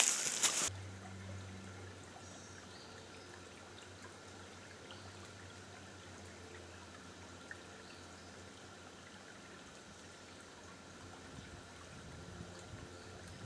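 Close rustling of clothing and brush as someone moves right past the microphone, cutting off abruptly under a second in. Then faint, steady woodland ambience with a low hum.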